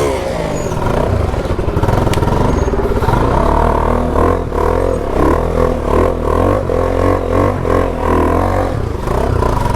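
Kawasaki superbike engine running as the bike is ridden around, its note rising and falling with the throttle in the first second, then holding steadier.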